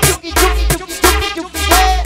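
Cumbia played loud over a sonido sound system, with a heavy bass and a steady beat under a melody of gliding notes.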